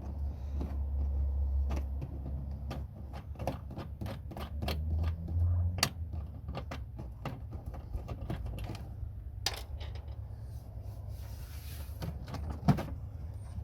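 Irregular small clicks and knocks of hands working a car door's lock rod and its clip on the door handle linkage, over a low hum that fades about halfway through.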